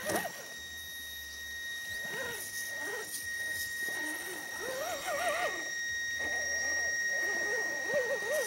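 Axial SCX10 Honcho RC crawler's electric motor running with a steady high whine as the truck climbs over dirt, with wavering vocal calls in short phrases repeatedly over it.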